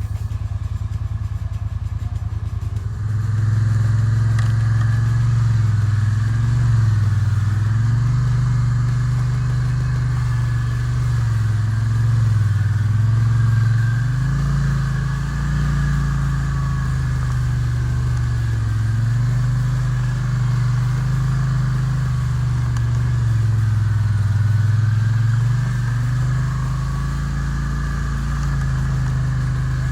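ATV engine running while riding, its pitch rising and falling with the throttle; it gets louder about three seconds in.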